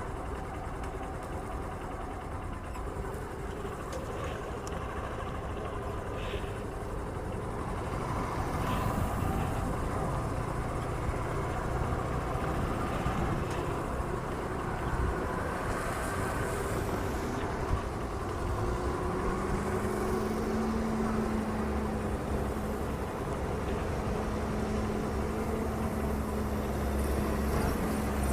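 Road traffic: motor vehicles running along the road, a continuous rumble, with a steady engine hum joining about two-thirds of the way through.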